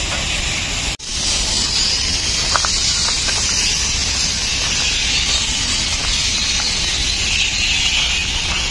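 Steady outdoor hiss with a low rumble underneath, briefly cutting out about a second in.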